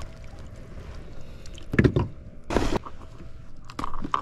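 Handling noises as a bass is landed in a kayak: a couple of sharp knocks a little under two seconds in, then a short rush of noise about half a second later, with a few lighter knocks near the end.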